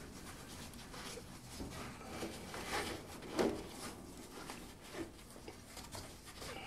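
Faint rustling and scuffing of a foam insulation strip being pushed down into the gap at the top of a window, with a couple of slightly louder scuffs about three seconds in.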